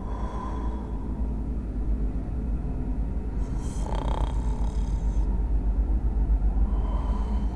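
Deep, steady low rumbling drone from the film's sound design, with a brief hiss about four seconds in.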